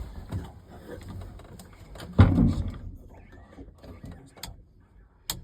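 Handling noise: a dull knock about two seconds in, then a sharp click near the end, with low voices.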